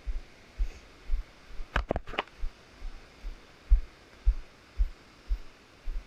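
Footsteps thudding through a body-mounted action camera, about two a second, with a quick cluster of three sharp clicks or cracks about two seconds in.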